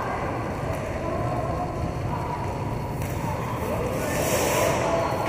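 Roller hockey play: a steady rumble of roller-skate wheels on the rink floor, with players' voices calling out. A brief hiss comes about four seconds in.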